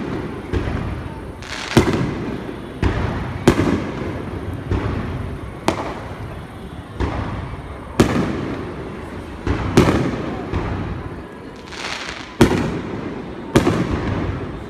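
Fireworks shells bursting overhead one after another, about a dozen sharp booms at roughly one a second, each trailing off in a rolling rumble.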